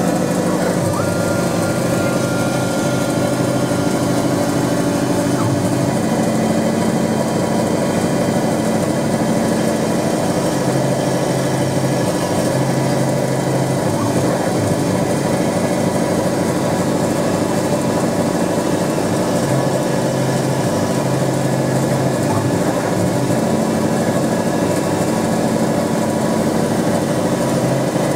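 Denford Novamill CNC milling machine running steadily while a fine end mill cuts into a brass strip. A low hum drops in and out every few seconds as the machine moves, and a thin higher tone holds from about a second in to about five seconds in.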